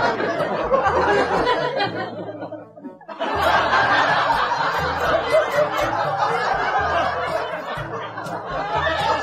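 Music with a repeating bass line and laughter over it, dropping out briefly about two and a half seconds in.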